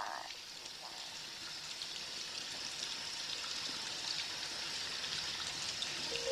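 Rain ambience at the opening of a chill-out track: a steady hiss of rainfall with faint scattered drops, slowly getting louder.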